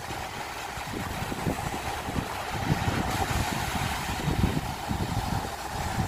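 Sea surf washing over shoreline rocks, with wind buffeting the microphone in irregular low gusts.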